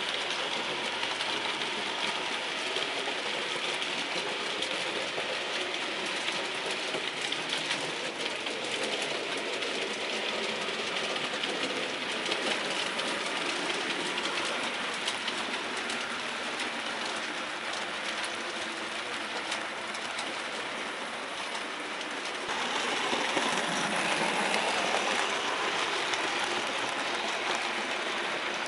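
OO-gauge model train running on layout track: the wheels of the coaches click over the rail joints over a steady running whir. It grows louder for the last few seconds.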